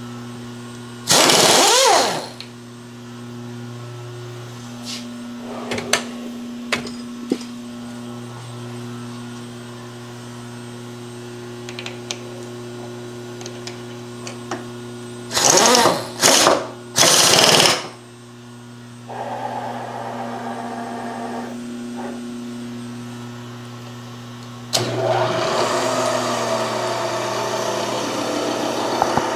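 Milling machine during an end-mill change: a steady motor hum, a loud short burst of hissing air about a second in and three more in the middle, with light tool clicks between them. Near the end the spindle starts up and runs.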